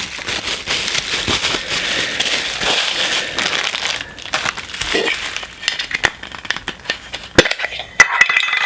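Plastic packaging of a Funko Soda collectible crinkling and rustling as it is handled and torn open, dense for the first few seconds, then scattered clicks and two sharp taps near the end.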